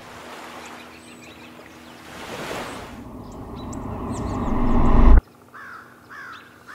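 A swelling whoosh sound effect that rises steadily to a loud peak and cuts off abruptly about five seconds in. Then short, falling bird chirps, about two a second.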